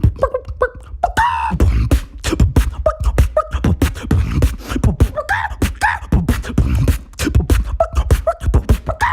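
Beatboxing: a fast, dense rhythm of mouth-made bass kicks and sharp clicks and snares, laced with short pitched vocal squeaks and gliding calls.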